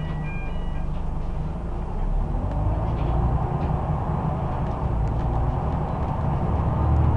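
Scania OmniCity bus's diesel engine heard from inside the passenger saloon, growing louder about two seconds in as the bus accelerates, with a few light clicks from the bodywork. A repeating electronic beep tone dies away within the first second.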